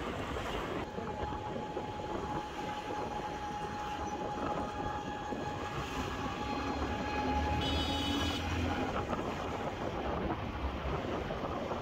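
Motorcycle ride heard from the rider's seat: engine running with wind and road noise and a thin steady whine through most of it. A short high-pitched tone sounds about eight seconds in.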